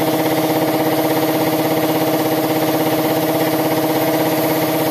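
Air compressor running steadily with a fast, even pulsing, under the hiss of a siphon-feed spray gun spraying paint.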